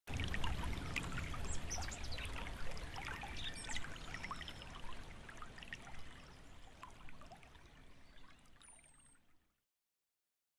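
Running, trickling water with scattered small clicks and a few brief high whistles. It fades out gradually and stops about nine and a half seconds in.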